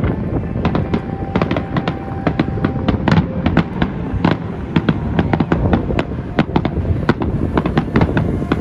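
Aerial fireworks display: a rapid, irregular string of bangs and crackles from shells bursting overhead.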